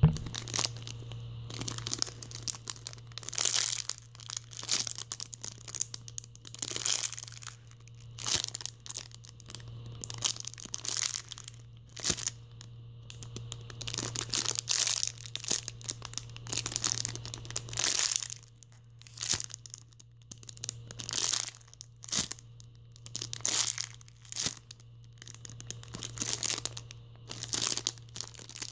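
Clear plastic bag crinkling and rustling in irregular bursts as a squishy toy is handled and unwrapped inside it.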